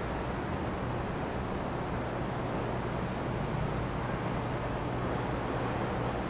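Steady city traffic noise: an even, low rumble of distant road traffic.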